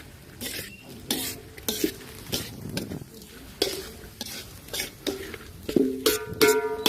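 A spatula scraping and knocking around a frying pan about twice a second, some strokes leaving a short metallic ring, over the sizzle of minced snake meat stir-frying dry without added liquid.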